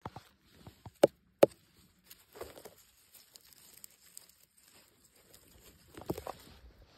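Rustling and crackling of grass, moss and leaf litter as a hand grips a pine bolete and pulls it out of the forest floor, the densest crackling about six seconds in. Two sharp clicks come about a second in.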